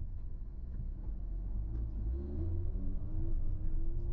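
Steady low rumble of a car's road and engine noise heard inside the cabin while driving uphill, with a faint wavering tone coming and going over it.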